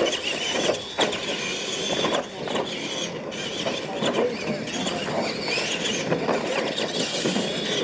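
Radio-controlled monster trucks racing flat out on a dirt track: a high, wavering motor and gear whine, with sharp knocks as the trucks land off the jumps.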